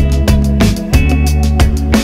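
Background music with a steady beat: bass, guitar and drums.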